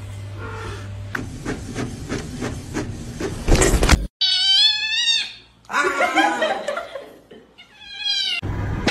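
A cat meowing in long, wavering, high-pitched calls, three of them from about halfway through. Before that comes a noisy stretch with a steady hum and a sudden loud noise just before a cut.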